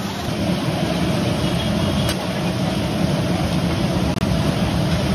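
Potato patties sizzling steadily in hot oil on a large flat griddle, over a constant low rumble. A light click sounds about two seconds in.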